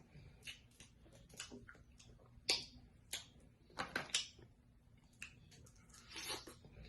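Close-miked eating: irregular clicks, smacks and cracks of chewing and working at snow crab legs. The sharpest cracks come about two and a half and four seconds in.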